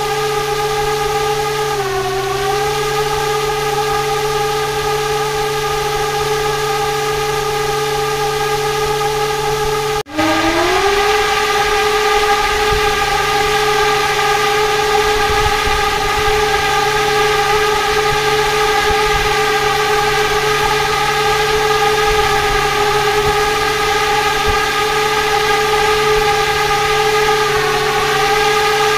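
Homemade radial brushless motor with copper-wound coils, driven by a BLDC controller and spinning a propeller, running with a steady electric whine. Its pitch sags briefly about two seconds in; after a sudden break about ten seconds in it spins up again, the whine rising to a steady pitch, and sags once more near the end.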